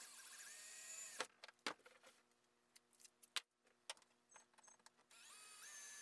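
Cordless drill running with a 1/8-inch bit, drilling mounting holes in a metal handle tube: one run of about a second, a few light clicks, then the drill runs again near the end.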